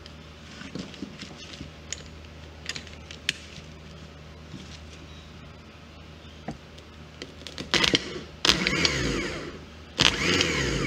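A few light clicks, then the rebuilt starter motor, fitted with new brushes and run off jumper cables, spins up in three short bursts near the end, each starting with a sharp snap as the lead touches. The strong spin shows that the brush repair has cured the dead starter.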